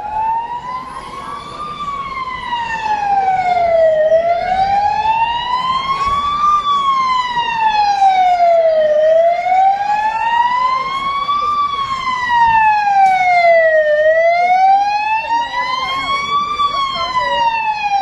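Fire engine siren wailing, its pitch rising and falling slowly in a cycle of about five seconds; it grows louder over the first few seconds.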